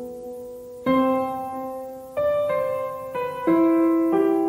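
Background music: sustained piano chords, a new chord struck every second or so.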